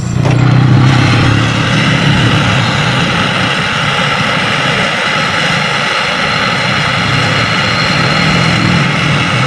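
Brazing torch flame, a steady, loud hiss with a low rumble, heating the joint between a freezer's capillary tube and its new filter dryer. It starts suddenly.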